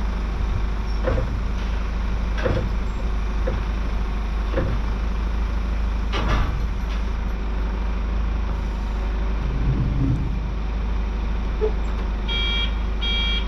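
Steady low rumble of a running motor vehicle, with scattered knocks and clunks. Near the end a high electronic beep starts repeating several times a second.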